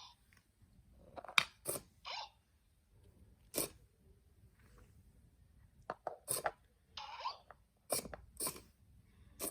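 Packaging being handled and opened: crinkling and tearing in short bursts, with sharp clicks and snaps in between.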